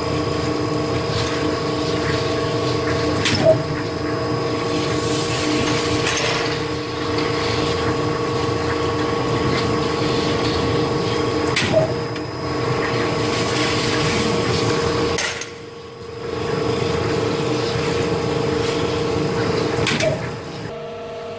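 Furring channel (omega profile) roll forming machine running with a steady hum, broken by three sharp clanks about eight seconds apart as the cut-off shears each length of channel. The running sound drops briefly about fifteen seconds in.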